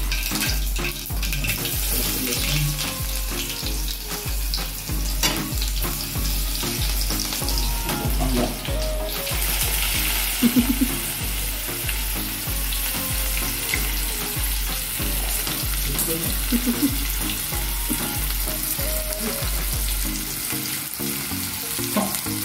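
Cumin seeds and green chilli sizzling in hot oil in an aluminium kadhai, the hiss growing louder about nine seconds in as chopped onion goes into the oil and is stirred. A low background-music beat, about two pulses a second, runs underneath and stops near the end.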